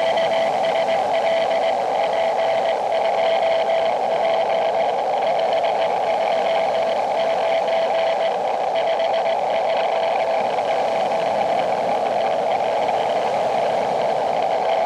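Elecraft KX2 transceiver receiving a Morse code (CW) signal: a single keyed tone of dots and dashes heard over steady band hiss.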